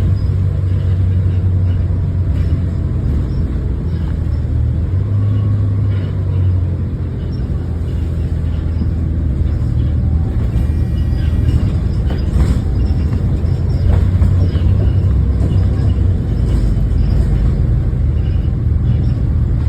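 Diesel engine of a First single-decker service bus running under way: a steady low rumble whose note shifts a few times as the bus changes speed.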